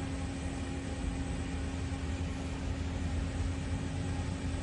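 CNC lathe running while cutting a thread on a steel workpiece: a steady machine hum with a constant low tone and an even hiss over it.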